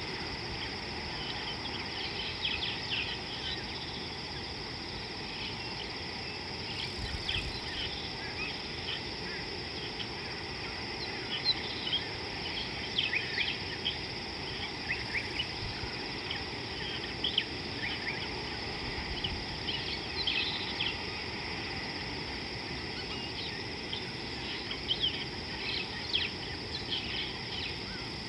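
Steady high-pitched insect drone with many short bird chirps scattered over it.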